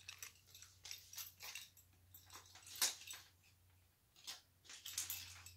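Light rustling and small scattered clicks of costume jewelry being handled: a pair of earrings put down and the next pair picked up, with the sharpest click about three seconds in.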